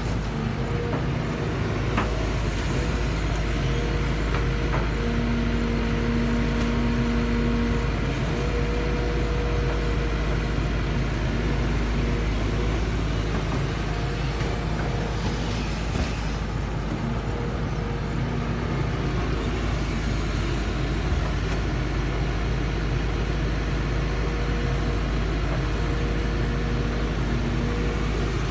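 Tracked hydraulic excavator (Kobelco SK series) running steadily: a diesel rumble with a whining tone that comes and goes as the boom and bucket are worked digging in wet mud.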